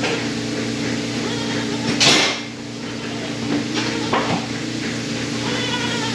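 Goats bleating over a steady mechanical hum, with a loud clatter about two seconds in.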